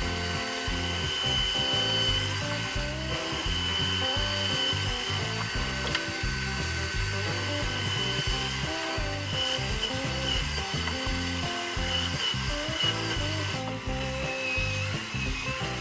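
Background music over a Bosch bench drill press running with a steady motor whine as its bit bores into plywood.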